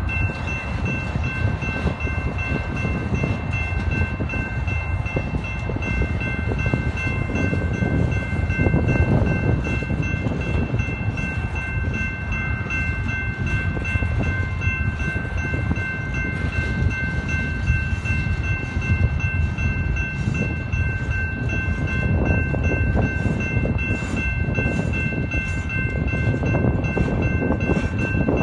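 Freight train of flatcars loaded with steel pipe rolling steadily past: a continuous low rumble and rattle of wheels and cars, heavily buffeted by wind on the microphone. A steady high ringing from the grade-crossing bell runs over it.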